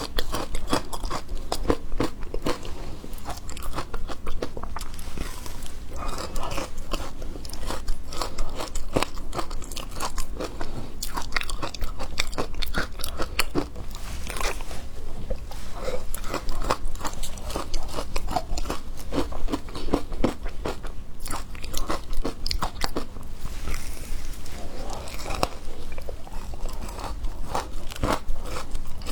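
Frozen matcha ice being bitten and chewed close to the microphone: dense, irregular crunching and cracking for the whole time.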